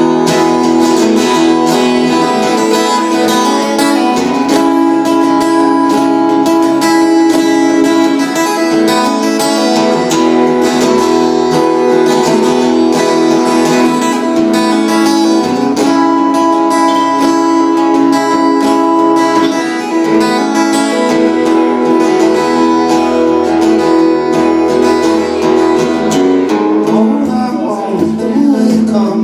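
Acoustic guitar strummed and picked in a folk-blues instrumental passage, with no singing over it.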